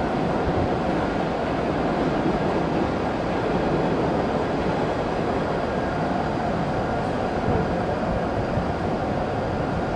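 W7 series Shinkansen train at the platform: a steady mechanical running noise with a faint, even hum held on one pitch.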